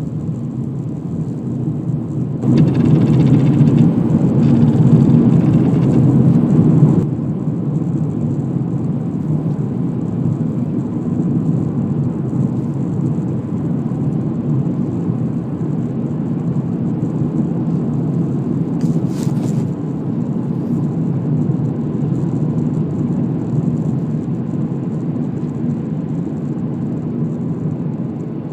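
Skoda Octavia A5 facelift making a steady low rumble and whir, louder for about four seconds near the start, with a brief hiss about two-thirds of the way through. This is a noise on the car that the owner cannot explain.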